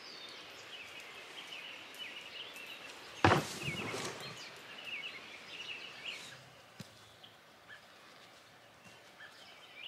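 Birds chirping and singing in the background, and about three seconds in a single loud thump that dies away over nearly a second, as a wooden fence post drops into a water-filled post hole.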